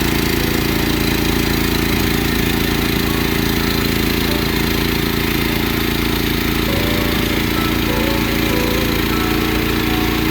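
Portable bandsaw sawmill's small gas engine running steadily at an even speed.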